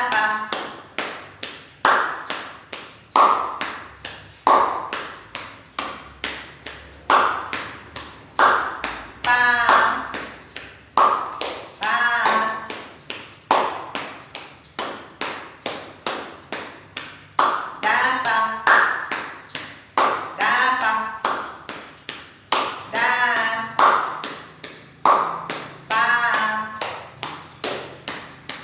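Steady rhythmic tapping, a body-percussion pattern with a stronger stroke about every second and a bit, and a voice chanting short syllables over some of the beats.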